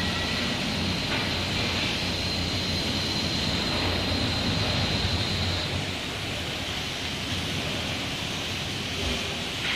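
Esquire SC 100 twin-cage rack-and-pinion construction hoist running as both cages descend: a steady mechanical hum with a thin high whine. The whine stops a little over halfway through, and the running is a little quieter after.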